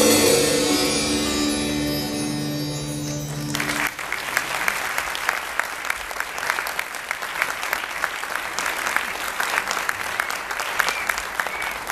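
A vocal group and acoustic band hold the song's final chord, which cuts off about four seconds in; the audience then breaks into applause.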